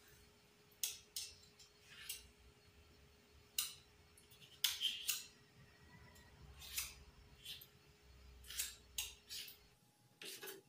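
Metal spoons clinking and scraping against each other and the rim of a metal saucepan while scooping and shaping thick pumpkin sweet: about a dozen short, faint, irregular scrapes and taps.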